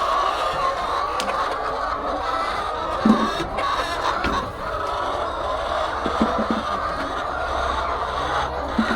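A flock of hens clucking, a steady dense chatter of many overlapping calls, with a few short clicks.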